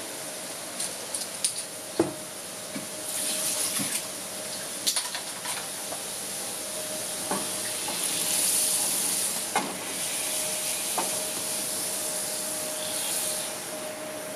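Hot oil sizzling and bubbling in a metal frying pan, swelling louder around the middle, with scattered sharp pops and clicks, the loudest about two seconds in, and a faint steady hum underneath.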